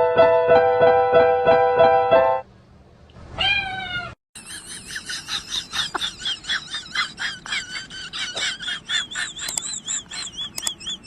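Keyboard music playing a repeated note pattern cuts off after about two seconds. A single cat meow rises and falls a second later, followed by a long run of rapid, high, wavering chirps.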